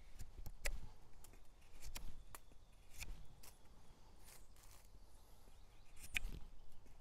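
Hunting knife blade shaving wood off a green stick: short scraping cuts at irregular intervals. They come thickly at first, thin out in the middle and return about six seconds in, as each knife is tested by how easily it carves.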